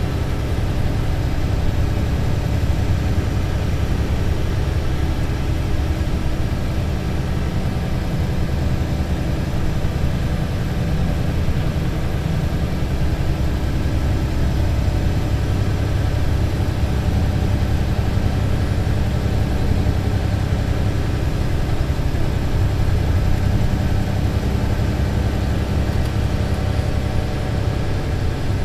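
Mercedes-Benz Citaro C2 LE city bus's diesel engine running steadily with an even low drone.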